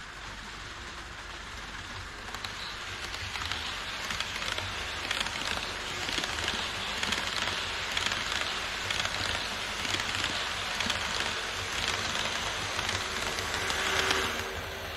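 HO scale model trains running on plastic viaduct track: a steady rolling hiss of wheels on rail with motor whir, swelling from about two seconds in as an E5 Shinkansen set runs past. It is loudest near the end, as the double-headed DD51 diesel locomotives pass closest, then eases off.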